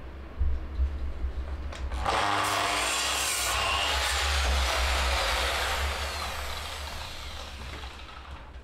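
Sliding compound mitre saw starts up about two seconds in and cuts through a wooden batten for a second or so, then its blade winds down with a falling whine over the last few seconds. A couple of clicks come before the start.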